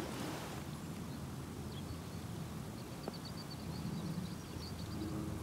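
Quiet rural outdoor ambience: a faint low murmur with a run of faint high bird chirps in the second half and a single small click about three seconds in.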